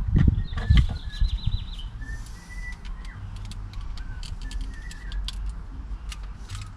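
Thumps and rattling clicks from handling a pried-off plastic truck door panel, loudest in the first second. Light clicks and short faint chirps follow over a low hum.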